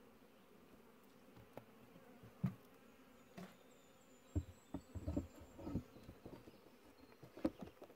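Honeybees buzzing around an opened hive, a faint steady hum, with scattered light knocks and clunks of hive parts being handled and set back in place.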